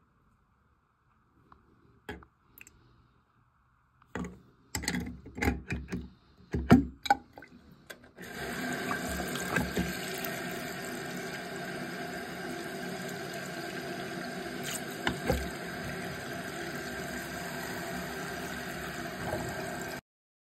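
Faucet running steadily into a bathroom sink basin and down the newly fitted drain. This starts about eight seconds in and stops abruptly near the end. Before it comes a short run of knocks and clatters.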